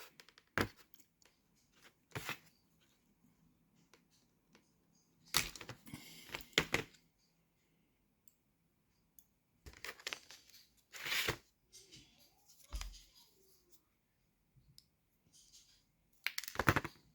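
Side cutters snipping through the metal legs of a small microswitch: a series of sharp clicks and snaps spread out with quiet gaps, some coming in quick clusters, with light handling noise between.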